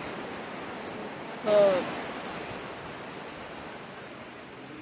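Surf washing onto a sandy beach, an even rush of small breaking waves. A short voiced exclamation about a second and a half in, falling in pitch.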